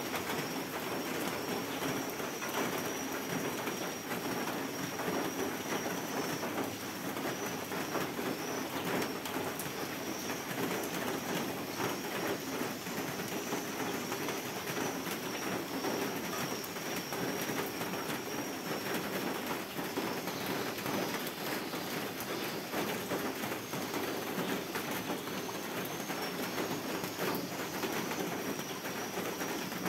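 Steady downpour of rain on leaves and a wet wooden deck: an even hiss made of countless small drop impacts.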